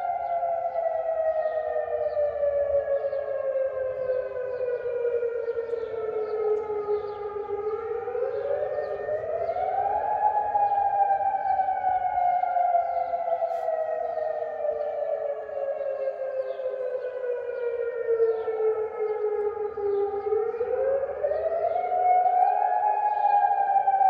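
Civil defence warning sirens wailing: each rises over two or three seconds, then falls slowly for about ten seconds, twice in all. Two sirens sound slightly out of step. The wail is the signal announcing a curfew.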